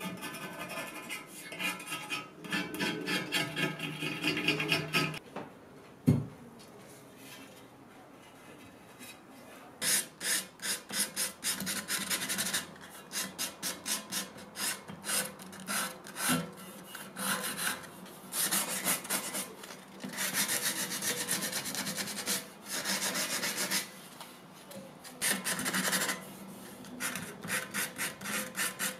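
A blade scraping the old finish off the back of a wooden mirror, with a squealing tone for the first five seconds, then a single knock. After that comes sandpaper rubbed by hand along a carved wooden frame: quick back-and-forth strokes in bursts of a few seconds.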